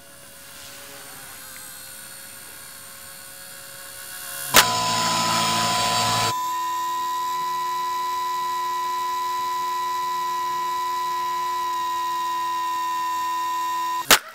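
Electric radio-controlled helicopter's motor and rotors: a faint whir that builds over the first few seconds, then after a sharp click a loud, steady, high-pitched whine. It ends in a sharp crack near the end as the helicopter hits the camera's lens protector.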